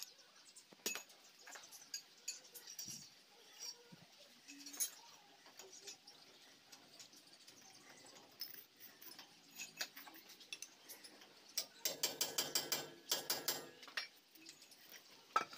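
Light clicks and taps of metal parts and tools being handled around a differential crown gear and its roller bearing, with a quick run of rattling clicks about twelve seconds in.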